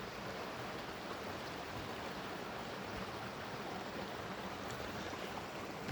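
A creek rushing steadily over rocks, a constant even noise of running water.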